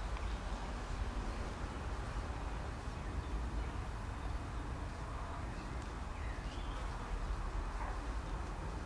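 Steady low outdoor rumble and hiss, with a few faint short high calls about halfway through and later.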